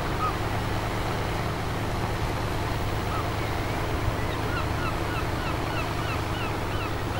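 A boat's engine running steadily, a low even hum, under the rush of wind and water along the hull as the boat cruises. A few faint, short, high chirps come through now and then.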